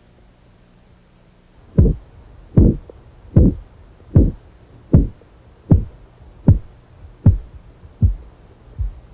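Korotkoff sounds through a stethoscope during blood pressure cuff deflation: ten pulse thumps about 0.8 s apart, starting about two seconds in, the last two fainter as they fade out.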